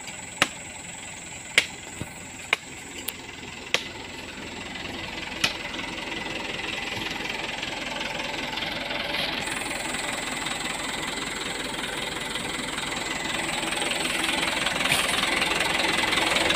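A few sharp knocks in the first few seconds, then the Mitsubishi Canter HDX truck's diesel engine running steadily, growing gradually louder toward the end.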